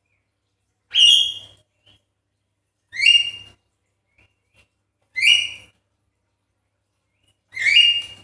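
Javan myna calling four times, about two seconds apart, each call short, loud and rising in pitch.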